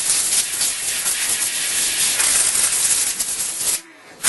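Compressed-air blow gun hissing, blowing metal chips off the milled part and mill table, with a light rattle of chips. It cuts off briefly near the end, then starts again.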